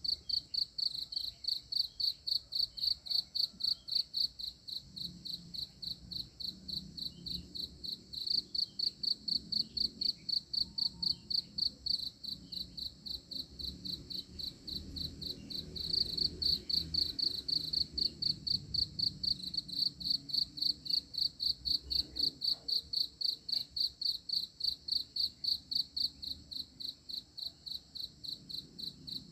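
Cricket chirping steadily, about three short, high chirps a second.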